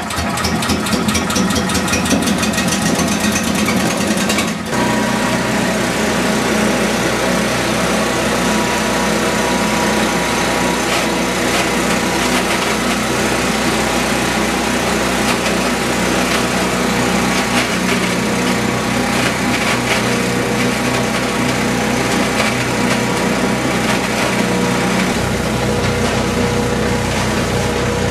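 13 hp Honda petrol engine of an ISO 4 insulation-blowing machine starting up and running steadily, driving the machine's carding rotor and blower. There is a short dip about four and a half seconds in, and the low hum shifts a few seconds before the end.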